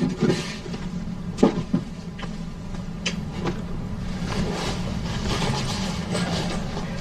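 A gift box being opened and handled: a few sharp clicks in the first few seconds, then soft rustling, over a steady low hum.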